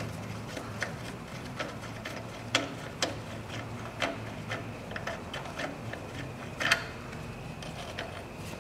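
Hand ratchet wrench clicking irregularly as the bolt of the lower engine mount is undone, with a few louder metal clinks among the ticks.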